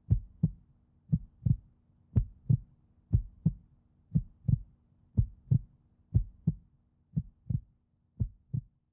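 Heartbeat sound effect: paired lub-dub thumps, about one pair a second, over a faint steady low hum, growing a little quieter in the last couple of seconds.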